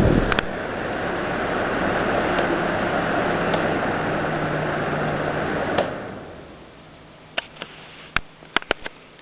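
Criscolor pedestal fan blowing steadily after a click, then another click about six seconds in and the rush of air dies away over about a second as the fan is switched off. Several sharp clicks follow near the end.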